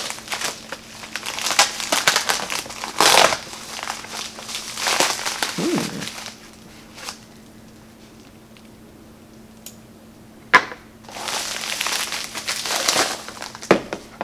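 White plastic packaging bag crinkling and rustling as it is handled and opened, in bursts for the first several seconds, then a quieter pause. A single sharp click comes a little past halfway, followed by more crinkling toward the end as the package is unwrapped.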